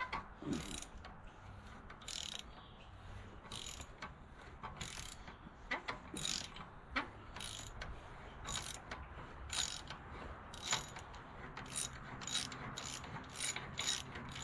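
Hand ratchet wrench clicking in short bursts, about one stroke a second and quickening near the end, as bolts are backed out by hand.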